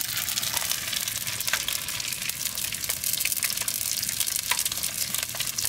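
Strips of dried fish frying in hot oil in a small pan: a steady sizzle with scattered crackles and pops.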